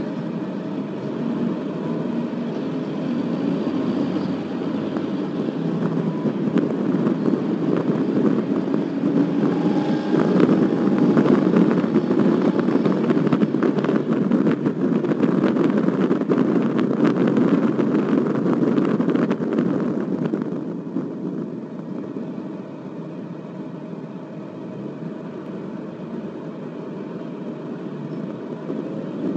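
Car driving, a steady rumble of engine and road noise that grows louder in the middle and drops off about two-thirds of the way through.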